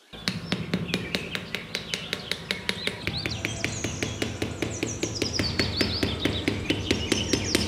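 Birds chirping in repeated falling chirps over a fast, very even ticking of about five ticks a second, with a low steady hum beneath.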